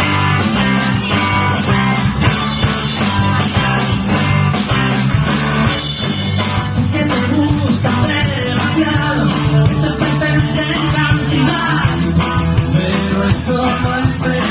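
Live rock band playing: electric guitar, bass and drum kit in a steady rhythm, with some singing.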